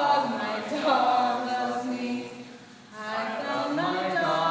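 Voices singing a chant-like tune in two phrases, with a short break about two and a half seconds in.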